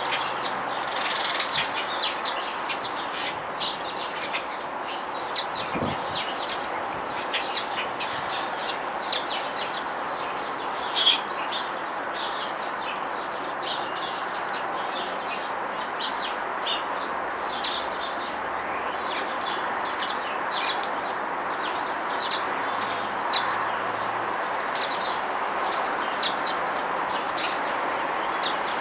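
Small songbirds chirping: many short, high chirps in quick succession, one sharper and louder about eleven seconds in, over a steady background hiss.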